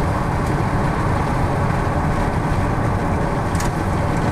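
Steady rumble of a car driving, road and engine noise heard from inside the cabin.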